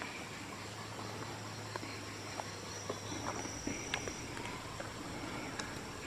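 Outdoor natural ambience with scattered small clicks and snaps. A low steady hum runs through the first half, and a thin high steady tone lasts about a second and a half in the middle.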